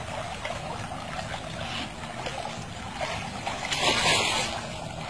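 Swimming-pool water splashing and lapping as a toddler paddles through it, with a louder rush of noise about four seconds in.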